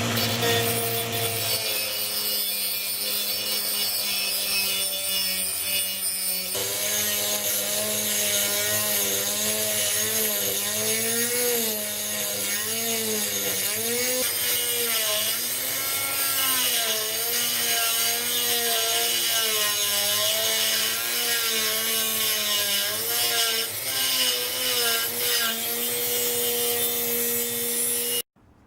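A 170-watt rotary tool, working through its flex-shaft extension, running at full speed as its grinding disc cuts through a ring about 3 mm thick. The motor's whine wavers up and down in pitch throughout the cut and stops abruptly near the end.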